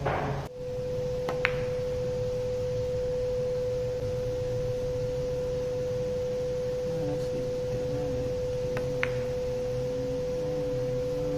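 A steady pure tone at one unchanging pitch, held for about eleven seconds after a brief noise at the very start, with a few faint clicks beneath it.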